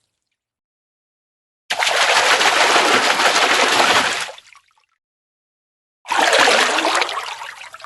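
A fish splashing at the water's surface in two bursts: the first starts abruptly a little under two seconds in and holds for a couple of seconds before fading; the second starts about six seconds in and fades away.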